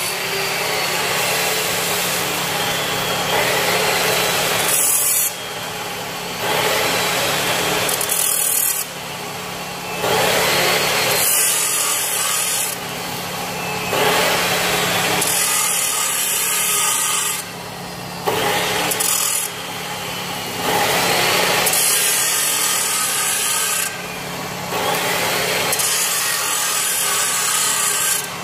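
Electric welding arc crackling and hissing on steel, in runs of a few seconds broken by short pauses.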